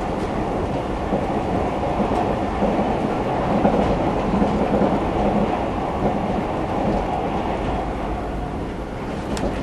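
Running noise inside the cabin of a JR 381 series electric train moving at speed: a steady rumble of wheels on rail, with a couple of faint clicks and a sharper one near the end.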